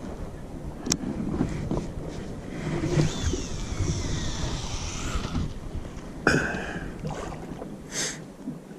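Round baitcasting reel's spool spinning freely as the line pays out on a cast, a high whirring whine that falls in pitch over about two seconds, over a low steady rumble from the boat.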